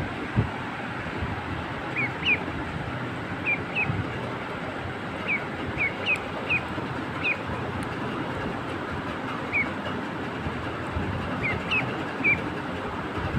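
A duckling peeping: short, high chirps, often two in quick succession, repeating every second or so over a steady background hiss.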